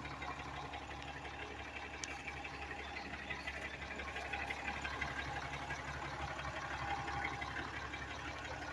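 2018 Ram 3500 pickup's engine idling steadily, running again after its fuel lines were replaced.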